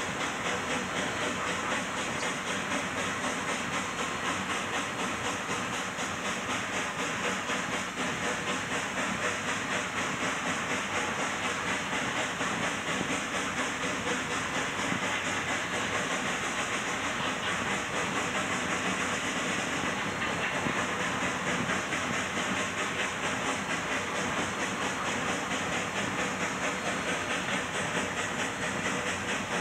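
Cab noise of a K-36 narrow-gauge 2-8-2 steam locomotive working upgrade with a heavy train: a steady rush of steam hiss and running noise.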